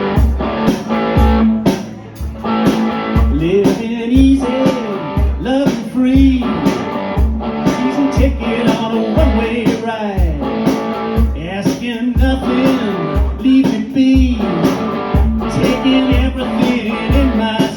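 Live rock band playing an instrumental guitar intro: a strummed electric guitar riff with bent notes over a steady kick-drum beat.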